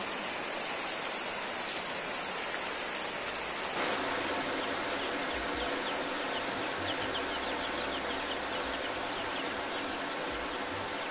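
Steady rain falling for the first few seconds. Then a steady hiss of wet outdoor ambience with rapid, high, thin peeps of chicks, each note sliding downward, many in quick succession in the middle stretch.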